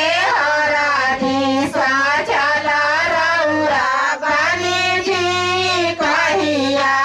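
A high voice singing a melody with wavering, ornamented notes, over a steady low hum.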